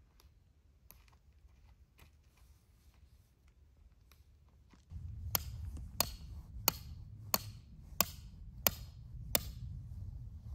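Camping peg hammer driving a metal tent peg into the ground: seven sharp, ringing strikes about a second and a half apart, starting about halfway through, over a low rumble.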